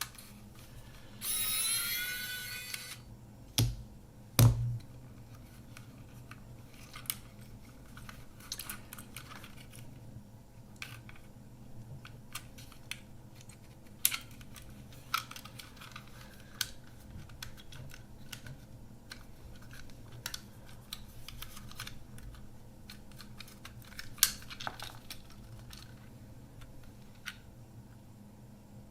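Small clicks, taps and scrapes of a screwdriver and plastic parts as a Kodak Ektar H35N half-frame camera is taken apart, with two louder knocks about four seconds in. About a second in there is a brief high squeal that rises in pitch.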